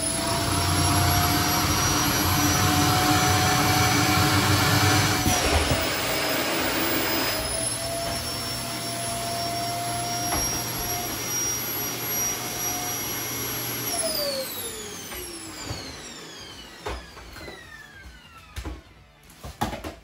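Sanyo canister vacuum cleaner running with its hose sucking the air out of a futon, the motor whine rising as it comes up to speed and then holding steady, with a slight drop in pitch about five seconds in. About fourteen seconds in it is switched off and winds down, followed by a few light knocks.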